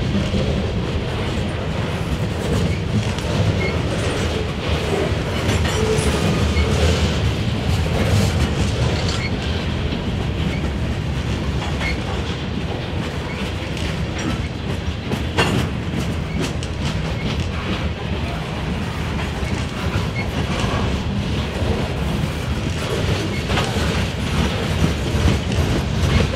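Freight train cars (boxcars, covered hoppers, a centerbeam flatcar) rolling past close by: a steady rumble of steel wheels on rail with scattered clicks as the wheels cross rail joints, a little louder near the end.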